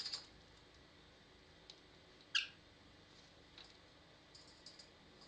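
Pet bird bathing in a shallow bowl of water: scattered light splashes and flutters. A single short, high chirp that drops in pitch comes about two and a half seconds in.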